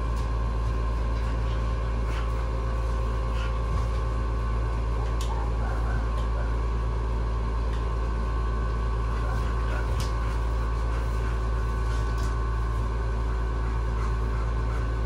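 Steady low mechanical hum with faint steady tones over it and a few faint clicks.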